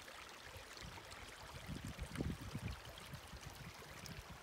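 Faint outdoor ambience: a steady hiss with irregular low rumbles that come in about a second and a half in.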